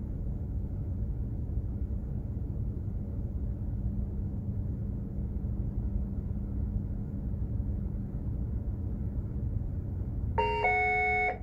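Steady low rumble with a constant hum from a container ship underway. About ten seconds in, a two-note electronic chime sounds over the ship's public address system, the attention signal before an announcement to all crew.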